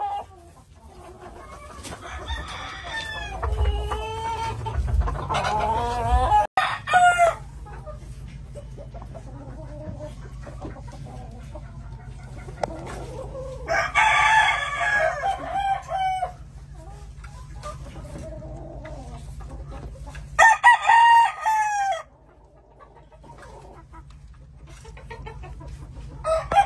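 Roosters crowing several times, with shorter calls in the first few seconds. The longest and loudest crows come about halfway through and again after about twenty seconds.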